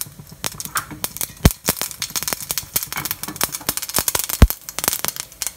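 Mustard seeds spluttering in hot oil in a small steel pan: a rapid, irregular crackle of sharp pops, with two louder pops about three seconds apart. This is the popping that marks the oil as hot enough for tempering.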